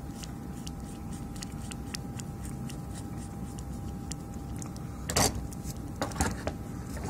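A screwdriver turning a screw into the metal heatsink bracket of a power-supply board, heard as faint scattered ticks, then two louder bursts of handling noise about five and six seconds in.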